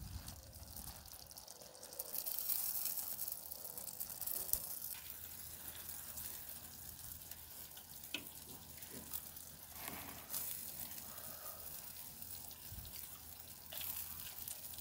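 Stuffed eggplant halves sizzling faintly on a charcoal grill, a soft hiss that swells a couple of seconds in and again near the end. A few light clicks and scrapes of a metal fork and spatula work the bubbling filling.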